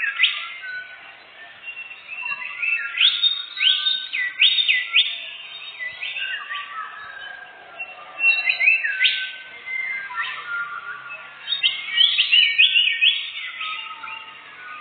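Songbirds singing: clusters of quick, sharp whistled notes sweeping up and down, loudest in bursts about 3, 9 and 12 seconds in.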